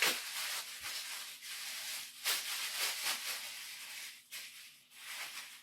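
Plastic bag rustling and crinkling as it is pulled over and gathered around the hair, in a run of short swells that die down near the end.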